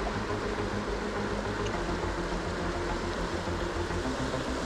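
Steady rush of fast-flowing river water with a low rumble, and a faint steady hum under it.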